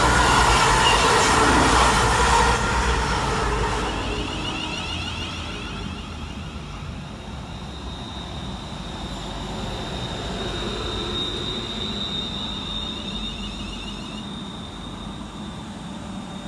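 Cross Country Voyager diesel units (Class 221 and 220) passing through at speed, their loud rush fading away within the first few seconds. Then a London Northwestern Class 350 Desiro electric multiple unit drawing into the platform, giving a high steady whine as it slows to a stop.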